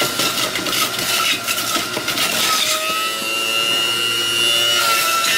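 Cuisinart 1000-watt juice extractor running as apples are fed through: a rough grinding for the first couple of seconds, then the motor settles into a steady high whine.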